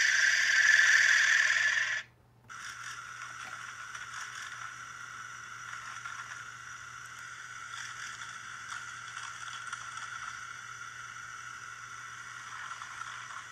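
Animal sound effects played through a laptop speaker. A loud, rough sound lasts about two seconds for the alligator. After a brief pause, a quieter, steady rough sound plays for the aardvark.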